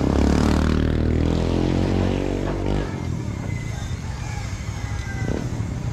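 A motor vehicle engine running close by, its pitch falling slightly, then dropping away about three seconds in and leaving a low, steady street hum.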